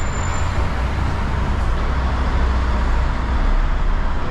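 Simulated truck in Euro Truck Simulator 2 being driven, its engine running steadily as a low rumble under road noise.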